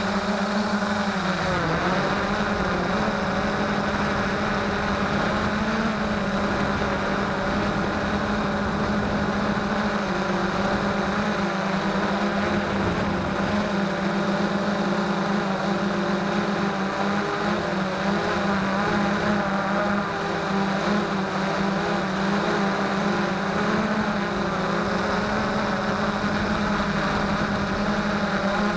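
Freex Skyview quadcopter's electric motors and propellers buzzing steadily in flight, heard close up from on board. The pitch dips briefly about two seconds in and otherwise wavers slightly.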